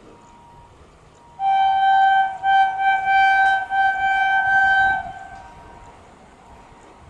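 Indian Railways electric locomotive's horn sounding one long blast of two notes together, starting about a second and a half in and lasting about three and a half seconds, with a few brief breaks before it fades.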